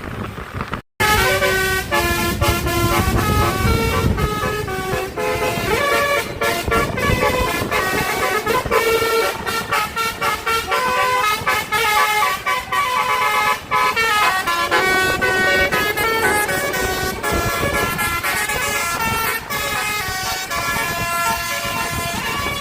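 Tour bus's Basuri telolet horn playing a tune: several horn tones sounding together, stepping up and down in pitch, note after note. It starts after a brief break about a second in and runs on over a low vehicle rumble.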